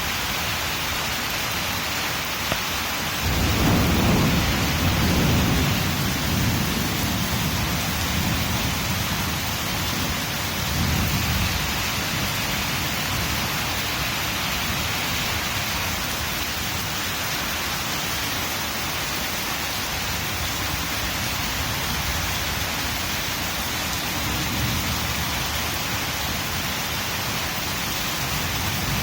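Heavy rain falling steadily, with a rumble of thunder about three seconds in that lasts several seconds, a shorter rumble a few seconds later, and a faint one near the end.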